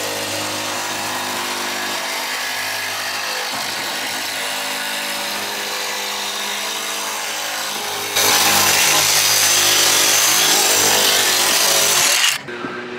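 A power tool running with a steady whine as it trims the metal lip off a fan opening cut in a van roof. About eight seconds in it bites in louder and harsher for about four seconds, then stops.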